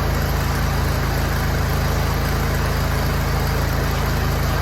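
Pressure washer's engine running at a steady speed, a constant low hum.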